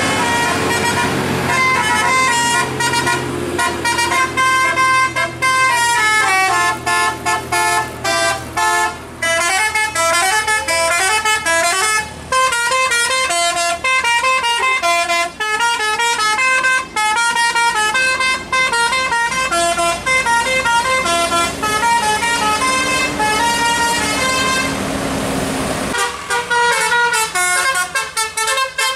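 Multi-tone 'telolet basuri' musical bus horn playing rapid melodic tunes, its notes stepping up and down in quick runs. The bus engine hums underneath.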